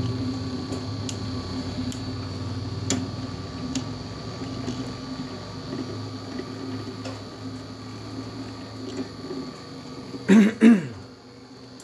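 Toroidal transformer winding machine running: a steady motor hum and whir with occasional light clicks as it winds enamelled copper wire onto a toroid core. About ten seconds in there are two short loud sounds.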